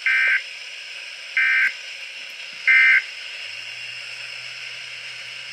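Three short bursts of SAME digital alert data tones from a weather radio broadcast, each about a third of a second long and about 1.3 s apart, over steady radio hiss. These are the machine-readable code bursts of an Environment Canada Weatheradio emergency alert.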